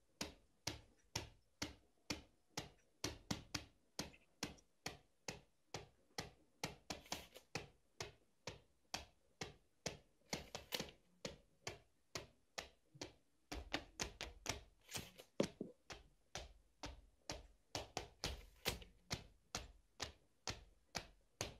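Home-made percussion played on household objects: a steady beat of sharp taps and clicks, a little over two a second, from slippered feet on a wooden parquet floor and a tape measure's blade being pulled out and snapped back. A deeper layer joins the beat about two-thirds of the way through.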